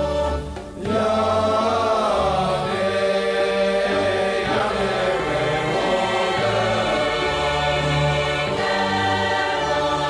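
Bulgarian folk song: voices singing over instrumental accompaniment with steady low bass notes, after a brief dip about half a second in.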